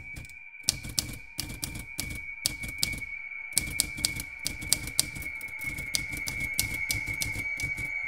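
Manual typewriter keys striking in an irregular patter, pausing briefly about three seconds in and then typing faster, over a steady high tone.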